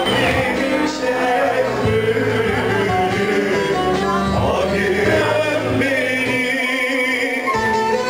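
Live dance-band music at a party: a man sings into a microphone over instrumental backing, with a clarinet playing a wavering melody line.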